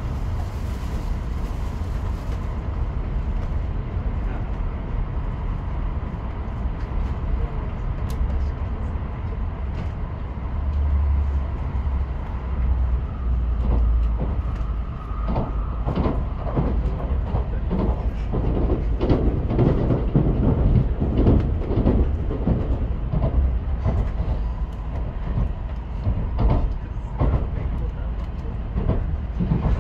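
Steady low rumble inside the cabin of an N700S Shinkansen train running on its line, turning louder and more uneven in the second half.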